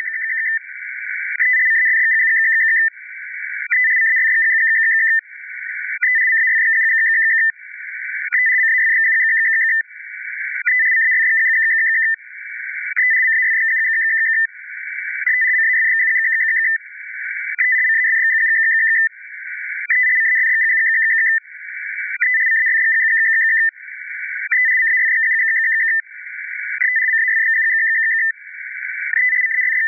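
Globe Wireless 100-baud FSK channel-free marker from coast station KPH, heard through an HF receiver: a two-tone data warble near 2 kHz that repeats in identical bursts about every two and a half seconds. These idle markers signal that the channel is free and carry the station's identifying code.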